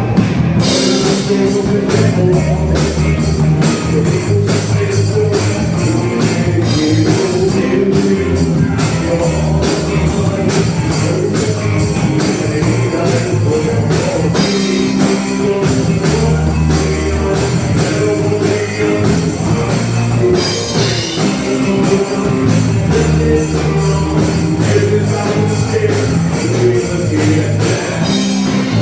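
Rock band playing live: electric guitar, bass and drum kit, continuous and loud.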